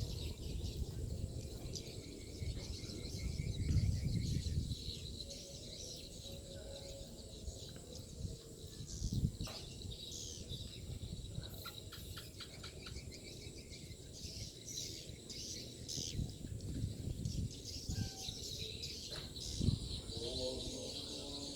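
Edible-nest swiftlets twittering: scattered short, high chirps, some in quick runs, over an uneven low rumble.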